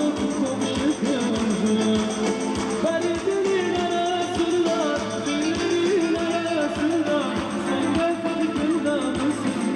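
Music: a song with a wavering sung melody over instruments and a steady beat.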